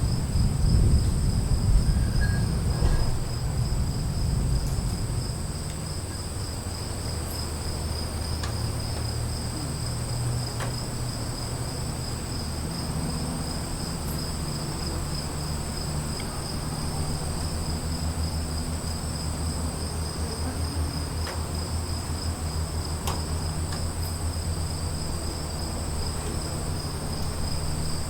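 Crickets chirring steadily at two high pitches throughout a storm ambience. A low rumble of distant thunder fades away over the first few seconds, leaving a quieter low background.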